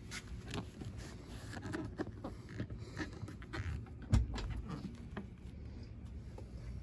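Low rumble with scattered light clicks and taps and one louder thump about four seconds in: handling noise from a hand-held phone camera.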